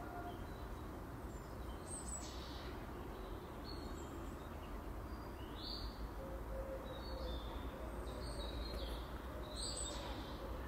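Small birds chirping in short, high, falling calls every couple of seconds over a steady low background hum of outdoor noise.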